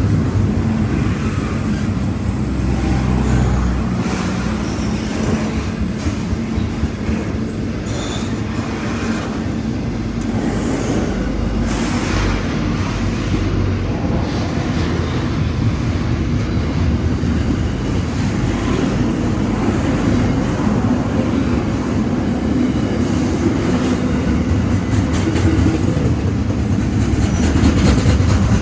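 Long freight train's wagons rolling past steadily, a continuous low rumble with scattered clicks from the wheels.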